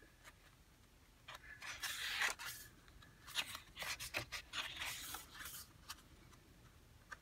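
Pages of a paper pad being flipped and slid over one another: papery swishes and crisp flicks in two clusters, about a second and a half in and again from about three to six seconds in.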